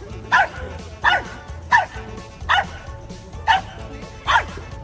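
A dog barking in a steady rhythm, six short barks about one every 0.8 seconds, each dropping in pitch.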